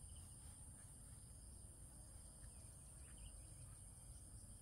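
Faint outdoor ambience: a steady high-pitched insect chorus, with a few faint short bird chirps and a low rumble underneath.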